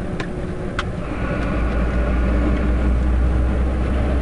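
IVECO truck's diesel engine and road noise heard inside the cab while driving: a steady drone whose low rumble grows stronger about a second in, with one short click just before.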